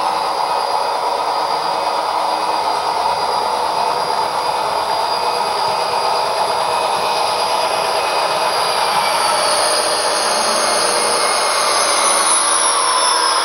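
Two HO scale Athearn SD40-2 model locomotives with SoundTraxx Econami sound decoders running. Recorded EMD diesel engine sound plays from their small sugar-cube speakers, mixed with the model's motor and wheel noise on the track. Several tones fall in pitch over the last few seconds as the locomotives come past.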